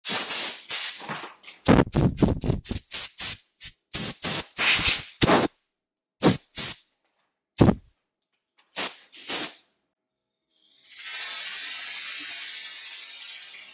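Compressed-air blow gun on a coiled air hose firing a rapid series of short hissing blasts, then one long continuous blast starting about eleven seconds in that fades near the end.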